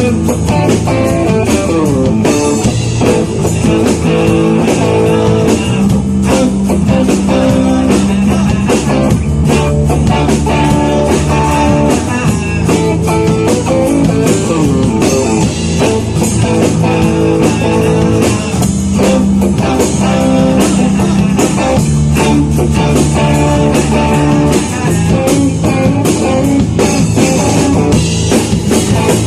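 Rock band playing live: guitar over bass and a drum kit.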